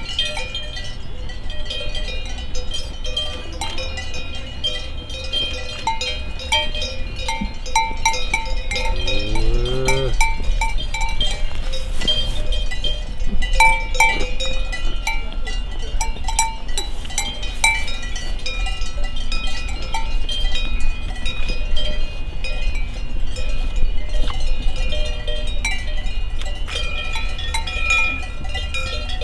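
Cowbells on grazing cows clanking and ringing irregularly, several bells at different pitches. About ten seconds in, a cow gives one short rising call.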